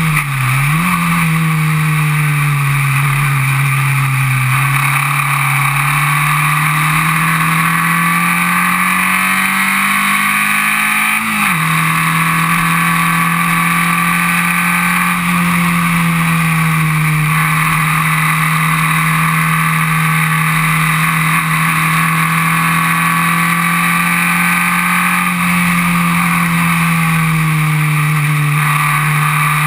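Formula Vee race car's air-cooled Volkswagen 1200 cc flat-four engine at racing revs, heard from the cockpit. Its pitch dips and recovers just after the start, then climbs steadily for several seconds. About eleven seconds in it drops sharply at an upshift, then holds fairly steady with small dips for the rest of the lap section.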